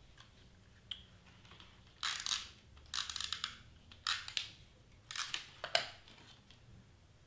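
A handheld tape runner drawn across cardstock in about five short crackling strokes between about two and six seconds in, with paper being handled and smoothed.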